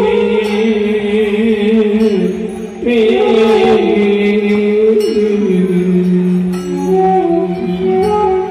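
Male voice singing a Bengali Radha-Krishna kirtan chant through a PA, in long held notes that waver and glide between pitches, with light percussion strikes underneath.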